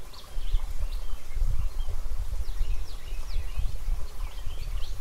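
Outdoor ambience: a gusting low rumble of wind on the microphone, with small birds chirping over it in quick short notes, busiest near the end.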